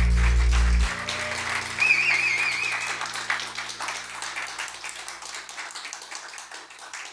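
A song ends on held low notes just under a second in, and a small audience applauds, the clapping slowly thinning and fading away. A brief wavering high whistle sounds about two seconds in.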